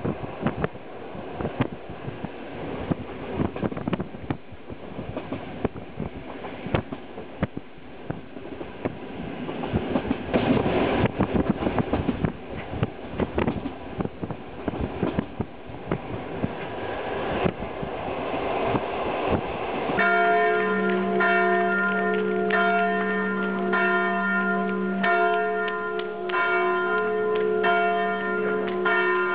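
Passenger train running, heard from inside the carriage: a steady rattling rumble of wheels on the track. After about twenty seconds it cuts to church bells ringing, several bells struck over and over with a deep bell beneath the higher ones.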